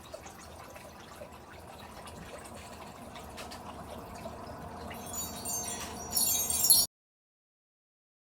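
Chimes shimmering and jingling as a magical sound effect, over a faint hum that slowly swells. The bright jingling comes in about five seconds in, is loudest near seven seconds, and cuts off suddenly.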